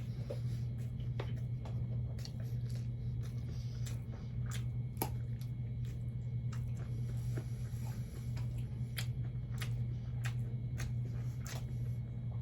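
Close-miked chewing of fish and rice: scattered wet smacks and clicks of the mouth, over a steady low hum.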